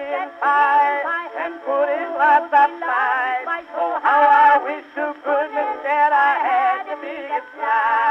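Music from an early acoustic phonograph record: a wavering melody line with vibrato over accompaniment, sounding thin and narrow, with no deep bass and no high treble.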